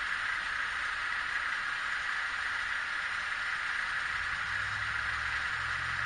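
Steady hiss with the faint, low hum of an idling dump truck's engine, which comes in more strongly about four seconds in.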